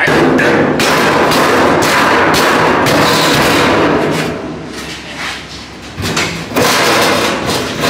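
Hammer blows on a sheet-steel panel, about two a second, tapping it down past a ridge it was caught on so it seats in place. The blows ease off for a couple of seconds midway, then start again.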